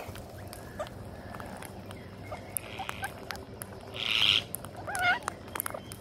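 Rose-ringed parakeets feeding on rice, with scattered small clicks of beaks picking grains off the concrete. A short harsh squawk comes about four seconds in, and a brief wavering call about a second later.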